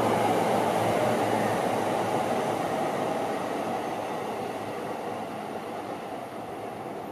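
Seibu Ikebukuro Line electric commuter train running past on the track, a steady rumble of wheels and motors that fades gradually as it moves away.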